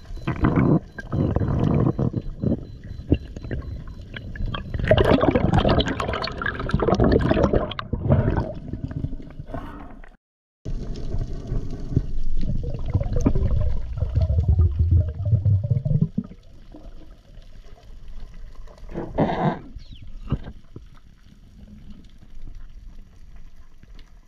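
Water gurgling and rushing around a spearfisher's camera, in loud uneven bursts. It cuts out for a moment about ten seconds in, then carries on more quietly after about sixteen seconds, apart from one short burst near the end.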